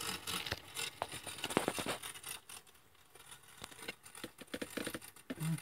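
Jensen #65 toy steam engine with a double-acting slide-valve cylinder, running slowly: a light clatter of clicks and ticks, busiest in the first two seconds, then sparse faint ticks.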